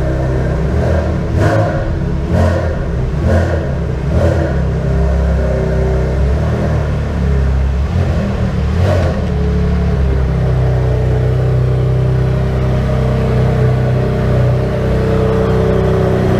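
Tuned Porsche 996 Turbo's twin-turbocharged flat-six engine running hard, through a custom exhaust. Four short sharp bursts come about a second apart in the first few seconds and one more about nine seconds in, after which the engine settles into a steady, even drone.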